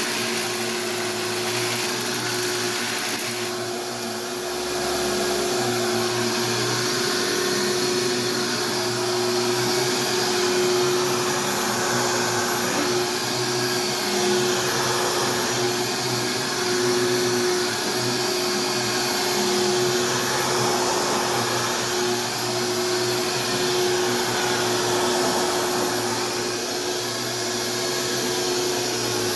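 Castex Lite Trac vacuum cleaner running on carpet: a steady motor hum with a rushing airflow that swells and eases a little every few seconds.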